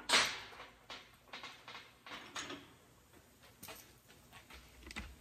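A hand tool set down on a steel-topped workbench with a scraping clatter, followed by several small knocks and clicks of tools being handled.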